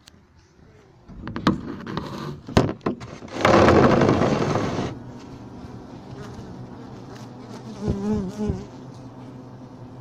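Handling noise with a few sharp knocks, then a loud rushing scrape for about a second and a half, as a phone is pushed in under a stacked-box Japanese hive. After that, honeybees inside the hive hum steadily, with one bee buzzing close past briefly about eight seconds in.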